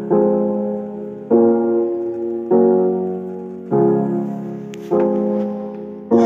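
Electronic music with piano-like chords, six in all, one struck about every 1.2 seconds and fading away, played back through a small homemade loudspeaker box.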